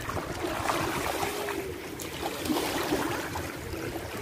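Small waves lapping in shallow water at a sandy shoreline, with the wash and slosh of feet wading through it.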